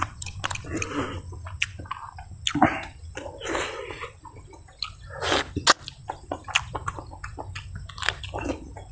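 Wet slurping and smacking of a person sucking cooked snails out of their shells and chewing, in several short bursts with sharp mouth clicks between.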